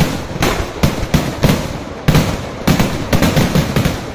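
Fireworks display going off in a rapid, irregular barrage of loud bangs, several a second, with a short gap about two seconds in before the blasts resume.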